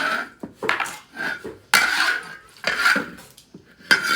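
Metal utensil scraping and clinking against a cooking pot or pan, a run of short irregular strokes with a faint ring after each.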